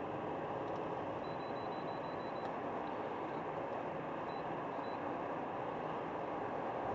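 Steady road and engine noise inside a moving car, as picked up by a dashcam's built-in microphone. A faint, quick run of high-pitched pips comes about a second in, and two more single pips follow a few seconds later.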